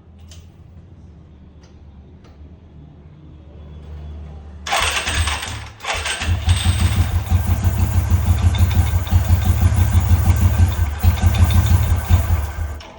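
Royal Enfield Classic 350 single-cylinder engine started on its electric starter: a burst of cranking about halfway through, a brief dip, then the engine catches and runs with an even low thump before cutting off suddenly near the end. This is the self-start being tested on the one-way starter clutch.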